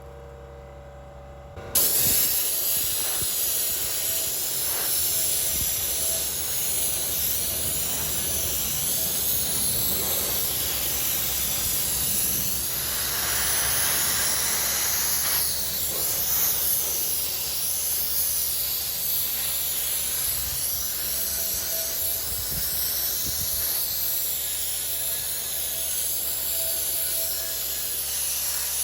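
Portable sandblaster firing glass-bead media at a transmission case to strip its paint: a steady, loud hiss of air and grit that starts about two seconds in.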